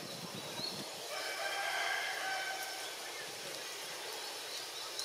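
One long animal call of about two seconds at a steady pitch, starting about a second in, over faint steady background noise.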